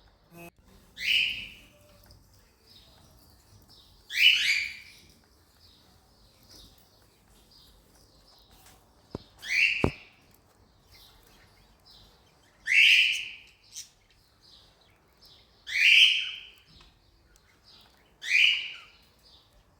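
Cockatiels calling: six loud, shrill calls a few seconds apart, with softer chirps between them. There is a short click about halfway through.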